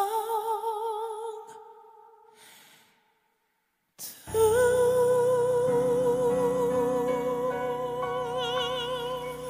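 Male singer holding a long note with a wide vibrato that fades away over the first two seconds or so. After about a second of silence, a new long vibrato note begins and is held to the end over a band's sustained chords.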